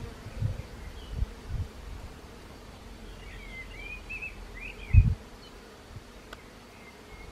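Honeybees buzzing as they fly about over wet mud, a faint steady hum. Low thumps break in during the first second and a half and most loudly about five seconds in, and a few high chirps sound in the middle.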